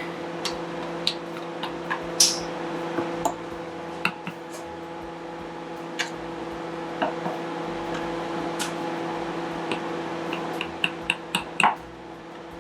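A fork pricking pie-crust dough in its dish: scattered light taps and clicks, with a quick run of them near the end, over a steady hum.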